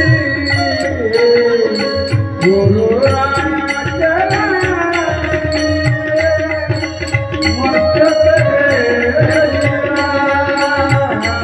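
Marathi devotional kirtan singing: a man's voice holding long notes that slide up and down over a drum accompaniment. A fast, even, high-pitched ticking beat runs underneath.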